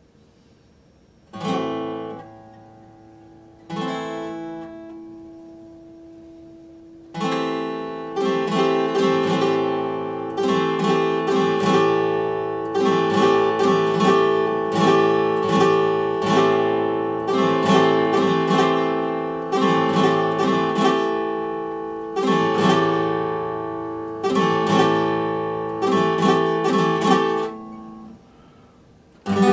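Epiphone acoustic guitar: two single strummed chords left to ring out, then steady, rhythmic chord strumming from about seven seconds in. The strumming breaks off near the end, and one more chord is struck.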